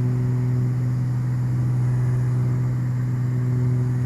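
Beechcraft G58 Baron's twin six-cylinder piston engines and propellers running at climb power, heard from inside the cockpit as a steady low drone with an unchanging pitch.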